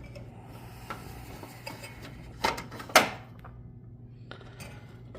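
Hands handling parts inside an open desktop computer case: scattered clicks and knocks, the two loudest about two and a half and three seconds in, over a steady low hum.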